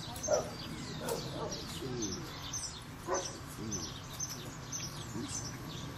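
Small birds chirping: many short, high, falling chirps repeating throughout, over a steady outdoor background.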